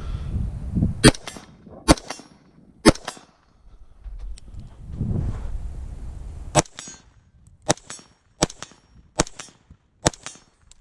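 Eight gunshots at a slow, steady pace: three about a second apart, a pause of several seconds, then five more about a second apart, each with a short echo.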